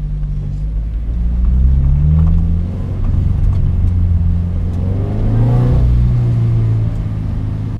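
Toyota GT86's 2.0-litre flat-four engine heard from inside the cabin, pulling at low speed, its note rising and falling a few times with a clearer rise about five seconds in.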